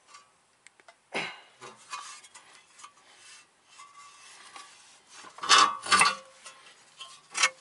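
Metal-on-metal clinks and scrapes from a car's front steering knuckle and lower ball joint being worked into place by hand. There are four sharp clinks, one about a second in, two loud ones close together around six seconds in and one near the end, with quieter scraping between.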